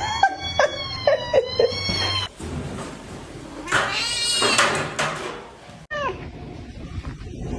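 Domestic cats meowing. A long wavering yowl comes first with short lower meows beneath it, then a loud drawn-out meow about halfway through, and a short meow falling in pitch shortly after.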